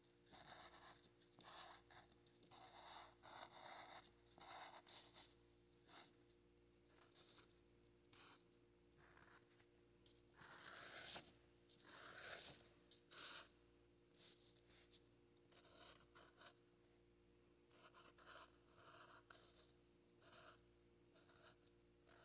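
Faint scratching of a black marker tip drawn across paper, in many short, irregular strokes as lines are sketched, with a few louder strokes about halfway through.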